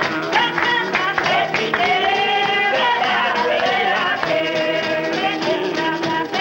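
Holiness church congregation of men and women singing a gospel song together, with strummed acoustic guitar accompaniment.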